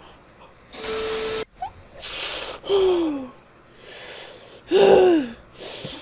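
A woman's gasps and breathy exclamations: a run of sharp intakes and outbreaths, two of them voiced as 'ooh' sounds falling in pitch, as she holds back laughter.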